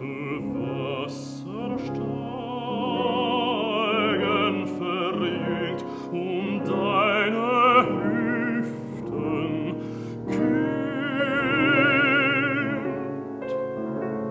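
Baritone singing a German art song (lied) with a marked vibrato, accompanied by piano. The voice ends near the end, leaving the piano playing on.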